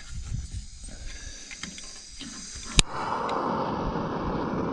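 Canister camp stove being lit: one sharp click from its piezo starter button a little under three seconds in, then the burner catches and burns with a steady rushing hiss. Before the click, faint gas hiss and light handling knocks.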